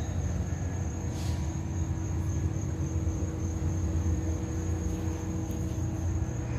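Steady outdoor background of a low machine-and-traffic rumble with a steady hum, and a thin, high, steady insect buzz over it.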